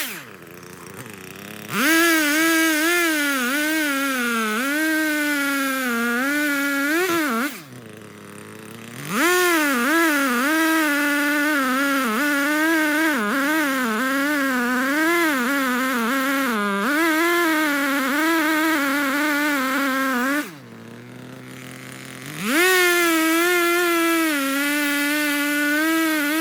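Echo CS-3510 two-stroke chainsaw run at full throttle in three long stretches, its pitch sagging and recovering as it cuts into wood. It drops back to idle twice in between.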